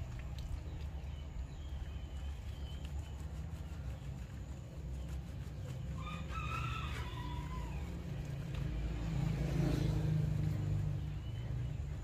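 A rooster crows once about six seconds in: a drawn-out call of about two seconds that falls at the end. A steady low rumble runs beneath it.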